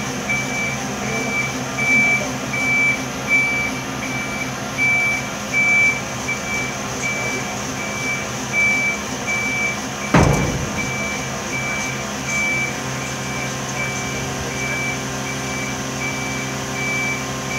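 Dennis Eagle refuse truck's warning beeper sounding a steady high beep about once a second over the running engine and hydraulics while the tailgate is lowered. A single loud clunk about ten seconds in.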